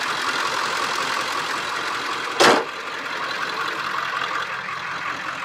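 Ford F-250 Power Stroke diesel engine idling steadily after a rebuild, running smoothly. A short, sharp knock sounds once about two and a half seconds in.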